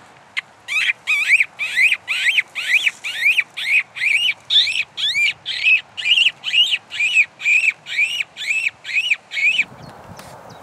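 Hand-squeaking fox call: a person squeaking with his lips against his hand to lure a fox, a run of about twenty short rising squeaks, roughly two a second.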